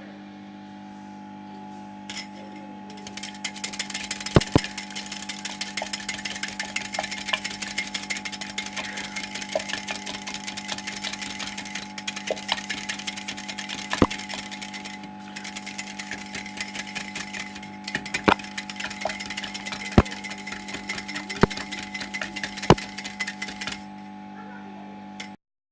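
Eggs being beaten by hand in a jug: a fast, steady clatter of the beater against the jug, with a few sharper knocks. It starts a few seconds in and stops shortly before the end.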